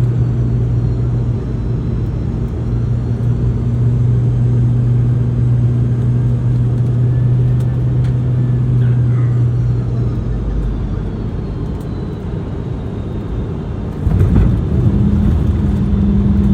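Cabin noise inside a Boeing 717: steady rumble with the hum of its rear-mounted Rolls-Royce BR715 engines. The low hum fades about ten seconds in, and near the end a sudden jolt of noise is followed by a new, higher hum.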